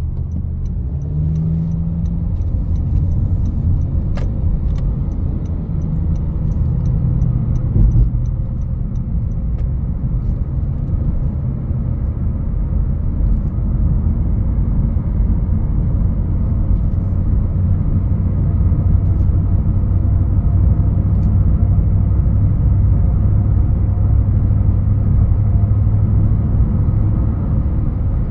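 A 2021 Honda HR-V's 1.8-litre four-cylinder engine and its tyres on the road, heard as a steady low rumble while driving, getting fuller in the second half. A light ticking, about three a second, runs through the first nine seconds or so, and there is a brief thump about eight seconds in.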